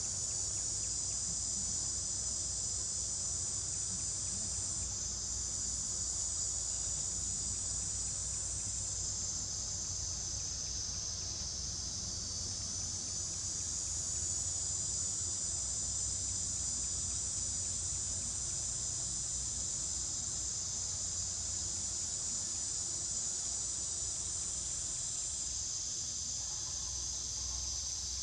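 Steady high-pitched chorus of forest insects shrilling without a break, swelling slightly now and then, over a faint low rumble.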